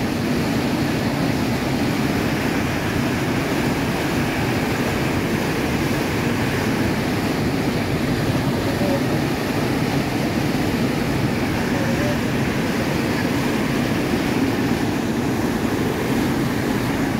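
Steady rushing and churning of water surging through a concrete sluice shaft of a boat lock while the sluice is running.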